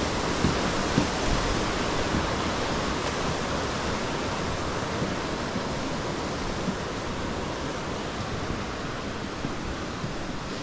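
Steady rushing noise that slowly fades, with a few soft thumps about half a second apart in the first two seconds.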